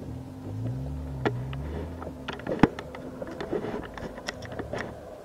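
Jeep Wrangler's engine revving up and easing off under load as it crawls up a rough dirt slope, the pitch rising then falling over the first couple of seconds. Scattered sharp knocks and clicks run through it, the loudest a little after two and a half seconds in.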